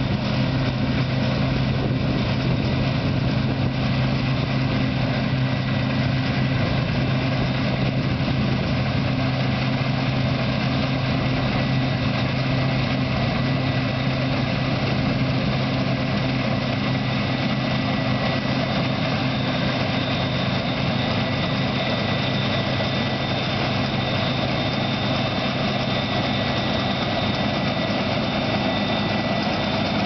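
New Holland combine harvester cutting wheat: engine and threshing machinery running in a steady drone, with a high whine that grows louder in the second half as the machine comes close.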